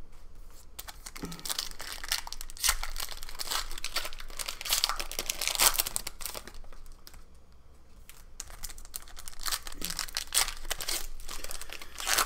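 Shiny plastic wrappers of Panini Prizm basketball retail card packs crinkling and tearing as they are ripped open by hand, with cards handled in between. The crackling eases off briefly about seven seconds in, then picks up again.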